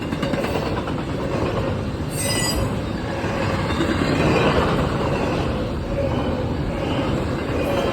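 Train cars rolling through a grade crossing, a steady rumble of wheels on rail, with a brief high wheel squeal about two seconds in.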